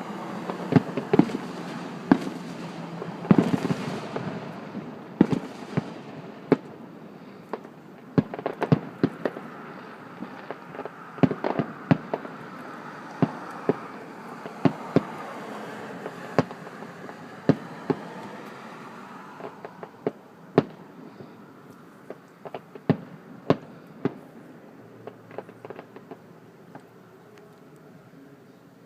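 Fireworks display: a rapid, irregular series of bangs over a continuous crackle, most closely packed in the first twenty seconds, then thinning out and growing quieter.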